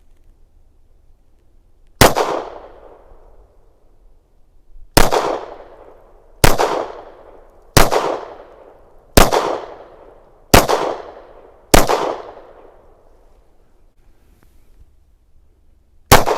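Canik METE SFT 9mm pistol firing eight single shots at an uneven pace, one to three seconds apart, each with a short echo trailing off.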